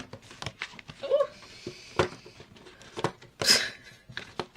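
Paper and card being handled on a work table: scattered taps and clicks, with a short rustling swish about three and a half seconds in.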